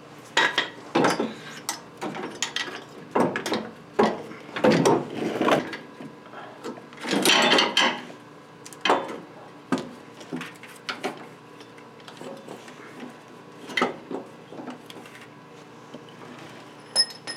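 Irregular metal clunks, knocks and scrapes as an automotive AC compressor is handled and worked into position on its engine mount, with one longer scrape about seven seconds in.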